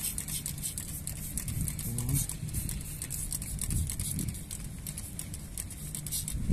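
Hand trigger spray bottle squirting cleaner onto a carbon-coated piston in quick, repeated spritzes, several a second.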